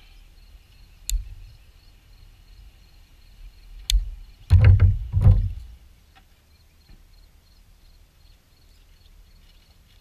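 Two sharp metallic clicks a few seconds apart as pliers work on a fishing lure's treble hooks, followed by two loud low thumps about half a second apart.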